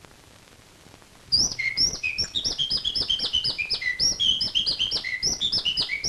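A man whistling an imitation of blackbird song: after a quiet first second, a quick run of short, clear whistled notes that leap between high and higher pitches, some sliding down.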